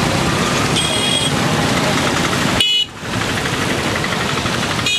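Steady rushing noise beside a flooded river, with a short high-pitched vehicle horn toot about a second in and another brief toot just before the sound dips out for a moment near the middle.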